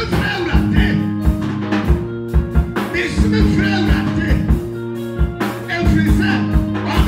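Live church praise music: held keyboard chords over a steady drum-kit beat, with a voice singing over it.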